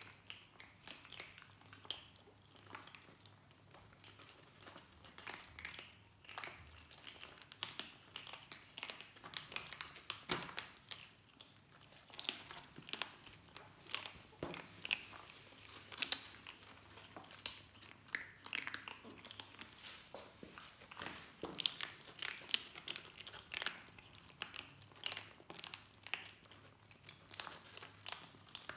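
Several 40-day-old kittens crunching dry kibble, a quick irregular run of small crunches and clicks. They are newly weaned onto dry food.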